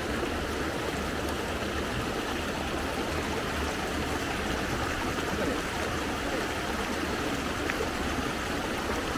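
River water flowing steadily, an even, unbroken rush.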